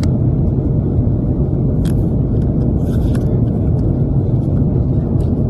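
Steady low drone of a jet airliner's cabin in flight, with a few soft crinkles of a paper snack wrapper being opened about two and three seconds in.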